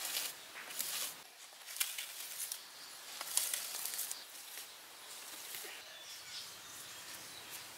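Hands working wet mud clay: irregular soft pats, presses and scrapes as slabs are set and smoothed, with a few sharper taps.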